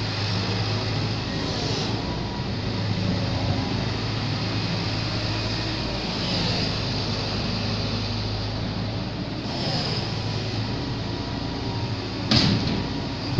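Amphibious excavator's diesel engine running steadily with a low, even hum. About twelve seconds in, a sudden louder burst of noise.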